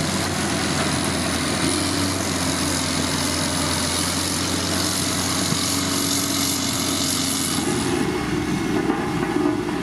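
Diesel engine of heavy road-construction machinery running steadily, with a thin high whine over it. The sound changes abruptly about eight seconds in, when the whine stops.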